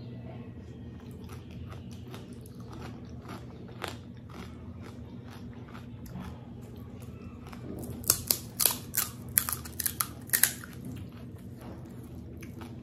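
Close-up mouth sounds of chewing panipuri, soft clicks over a steady low hum, then a run of loud, sharp crunches from crisp puri shells cracking, about eight seconds in, lasting some two seconds.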